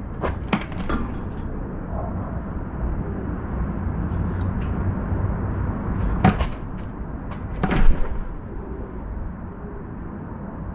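A crow coughing with short hoarse hacks after choking on water it was drinking. There are three quick coughs near the start and two louder ones a little past the middle, over a steady low rumble.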